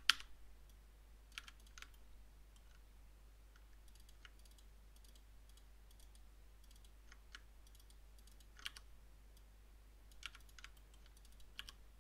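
Computer mouse clicks and key taps, scattered with pauses between, the loudest just after the start, over a faint steady low hum.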